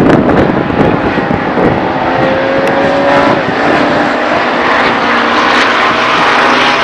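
Modsport racing cars accelerating hard from a race start, several engines at full throttle at once. About two seconds in, one engine's pitch rises as it climbs through a gear.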